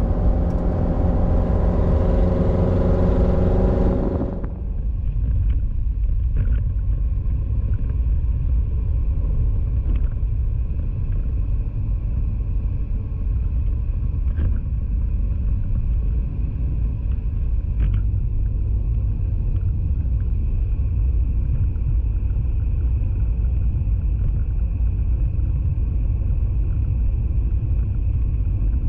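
Steady low road and engine rumble of a car driving at speed, heard from inside the cabin. For the first four seconds a louder, steady pitched hum rides on top of it, then cuts off sharply.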